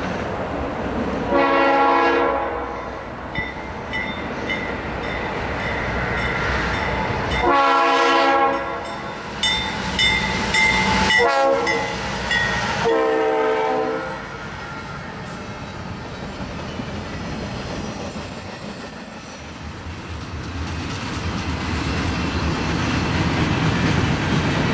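Diesel freight locomotive air horn sounding a series of blasts: two long ones, some broken shorter toots, and a final blast about thirteen seconds in. The rumble of the passing train follows and grows louder near the end.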